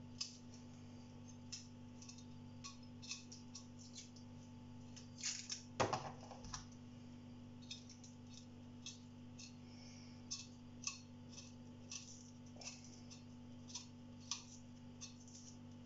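Light, irregular clicks and taps of garlic cloves being handled and prepared at the kitchen counter, with a louder knock about six seconds in, over a steady low hum.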